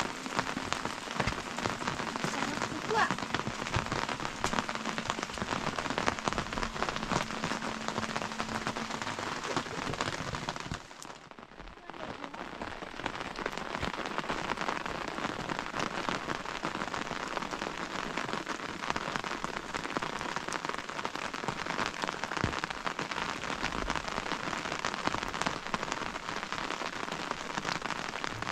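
Steady rain falling, a dense patter of drops that dips briefly about eleven seconds in.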